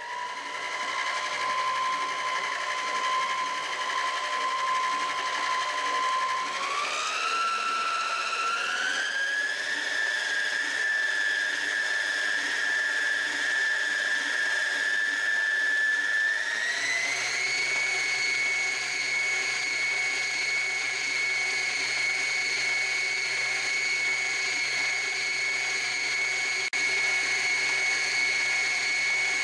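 Kenmore Elite Ovation tilt-head stand mixer motor starting up and running with a steady whine, beating butter and sugar as eggs are added. The whine steps up in pitch about six and a half, eight and a half and sixteen and a half seconds in as the mixer is turned to higher speeds.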